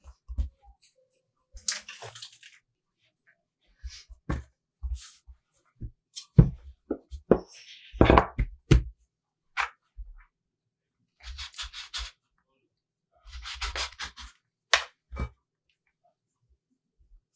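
Hands kneading and pressing out pizza dough on a floured wooden board: scattered knocks and thumps on the board, the loudest in the middle, with several short bursts of rubbing and scraping.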